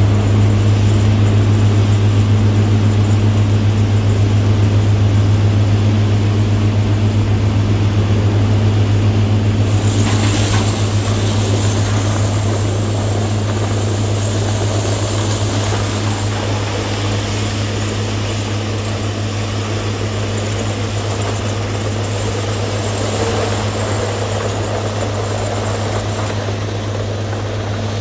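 Heavy logging machinery running, chiefly the wood chippers and the log loader's diesel: a loud, steady, deep drone. A hiss joins about ten seconds in and holds.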